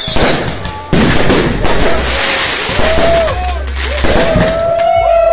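Fireworks and firecrackers going off in a rapid crackling barrage. From a little past halfway, several overlapping whistles rise and fall in pitch.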